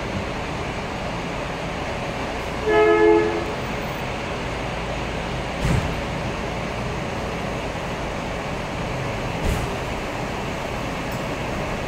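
Diesel coach engines running steadily as a coach manoeuvres. A short two-tone horn blast sounds about three seconds in, and two dull thumps follow later.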